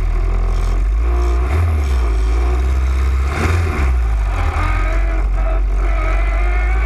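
Open-wheel race car's engine heard from the cockpit, running at low revs as the car rolls slowly, with a brief blip of the throttle, revs rising and falling, about three and a half seconds in.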